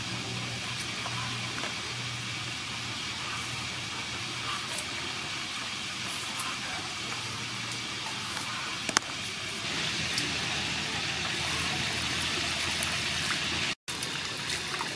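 Faint scraping and light ticks of a cucumber being peeled and shredded by hand over a steady background hiss and low hum, with one sharp click about nine seconds in. Near the end, after a brief cut, water sloshing in a metal bowl as greens are washed by hand.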